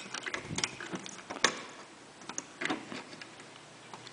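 Irregular light clicks and taps of an AMD stock CPU cooler's metal retention clip being worked over the plastic latch on the motherboard's socket bracket, with one sharper click about a second and a half in.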